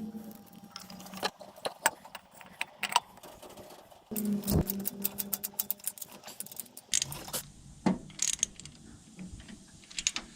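Hand tools and metal engine parts clinking and knocking irregularly, with a few louder clanks, while an intake manifold is bolted onto a rotary engine.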